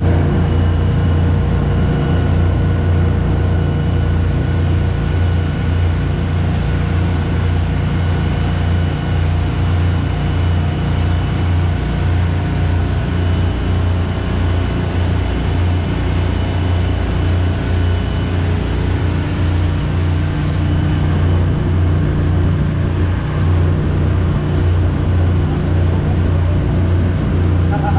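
Charter fishing boat's engine running steadily, a loud low drone. A higher hiss rides over it from about four seconds in until about twenty-one seconds.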